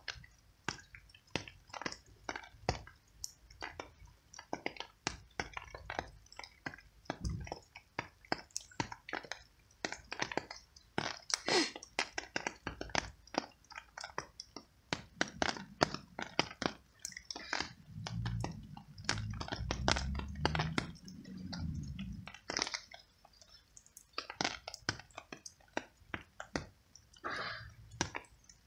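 A cat chewing and crunching treats close up: a busy, irregular run of crunchy bites and mouth clicks.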